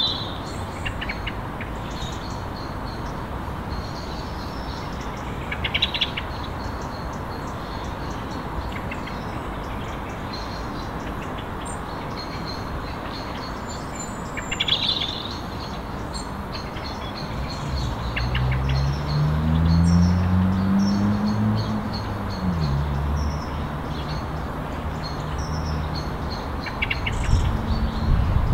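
Small birds chirping now and then over a steady background hiss. A little over halfway through, the low engine note of the approaching Class 60 diesel locomotives comes in, rises in pitch, then drops back and holds steady.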